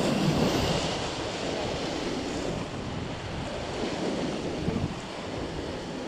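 Whitewater rapids rushing and churning around an inflatable raft, with wind noise on the microphone; the water is loudest in the first second.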